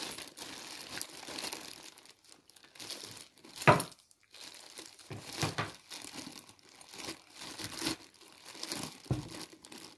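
Clear plastic bag crinkling and rustling as hands rummage through small engine parts inside it, with one sharper, louder crackle a little under four seconds in.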